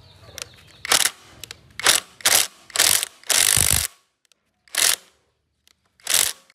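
Cordless impact wrench hammering on the centre bolt of an engine's toothed timing pulley, in a run of short bursts with one longer burst about halfway through.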